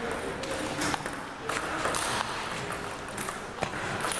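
Table tennis ball being struck back and forth by paddles and bouncing on the table in a rally, heard as a series of sharp, irregularly spaced ticks.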